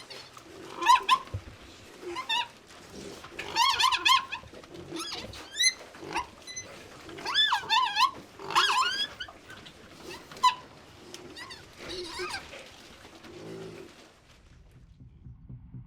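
Pigs squealing again and again in high, wavering cries, with lower grunts between the squeals. The calls die away about fourteen seconds in.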